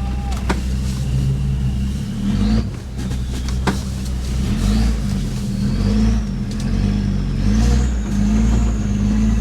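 Off-road 4x4 engine running, its revs rising and falling several times, with a couple of sharp clicks.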